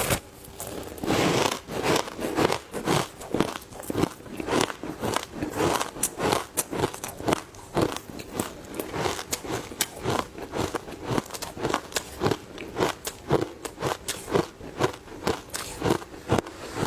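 Close-miked crunching of matcha-powdered ice being bitten and chewed: a steady run of sharp crunches, about two to three a second, with a longer crunch about a second in.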